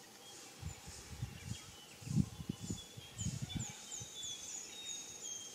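Forest birds calling, with thin high whistles and a run of quick, repeated high chirps in the second half. Low bumps on the microphone are loudest in the middle.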